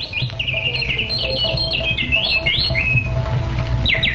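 Birds chirping and trilling in quick runs of notes over soft background music with a low steady drone; a fast even trill begins near the end.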